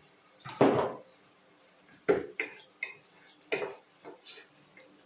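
Cookware and utensils clanking: about six separate knocks and clinks of pots, pans and cutlery, some ringing briefly.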